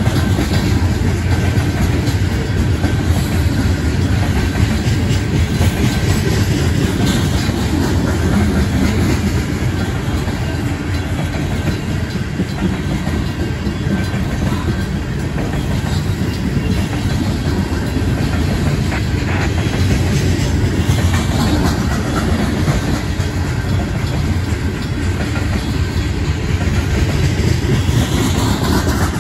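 Union Pacific coal cars rolling past at a slow pace, wheels clattering steadily over the rail joints, with the crossing bells ringing.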